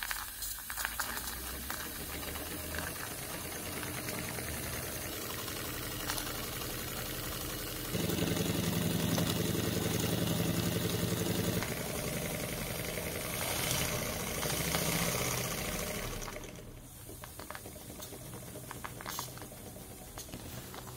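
Small Wilesco 'bitsa' compound model steam engine, two cylinders, running on steam from its boiler: a fast mechanical rattle of pistons and crank with a steam hiss. It gets markedly louder, with a steady hum, from about a third of the way in, then quietens again about three-quarters of the way through.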